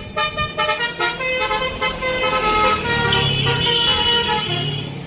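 Bus telolet (basuri-style musical multi-tone) horn playing a quick tune of stepped notes. From about two seconds in, longer horn tones sound over the bus's engine rumble, which grows loud and then begins to fade near the end.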